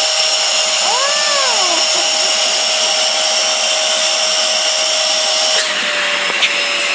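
Dyson handheld vacuum cleaner running with a steady whine while its nozzle is sucked onto a person's lips. Its sound changes abruptly near the end as the nozzle comes off. A short rising-and-falling hum is heard about a second in.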